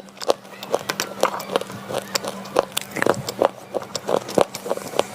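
Slate pencil being bitten and chewed: irregular crisp crunches, several a second, over a faint steady hum.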